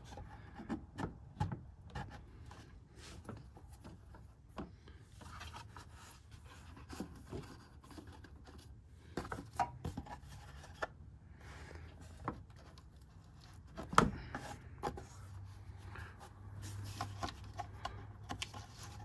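Hands working a plastic air filter and air intake housing in a truck's engine bay: scattered rubbing, scraping and light clicks, with one sharp knock about 14 seconds in.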